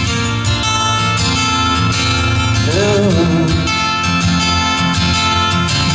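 Amplified acoustic guitar strummed in a steady rhythm through an instrumental break in a country song, with a short sung phrase about three seconds in.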